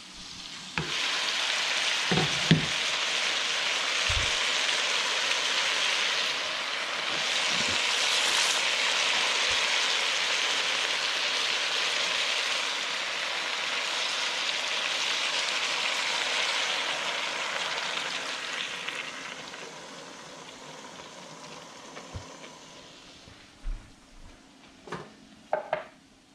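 Loud sizzling as coconut milk is poured into a hot pan of chicken. It starts about a second in, holds steady, then dies away over the last several seconds. A few knocks come near the start and the end.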